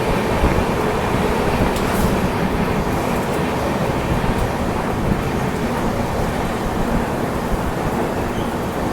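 Passenger train running along the track, heard from on board as a steady rumble and rail noise.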